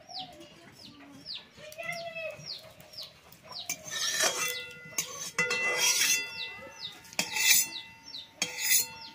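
Chickens peeping in a quick run of short falling chirps, with a few lower clucks. From about four seconds in, a long metal spatula knocks and scrapes in a large empty aluminium kadai, and the pan rings after each strike.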